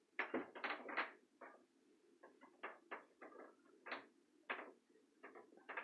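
Short, soft rustles and knocks at irregular intervals, about a dozen of them, from a child moving about close to the microphone.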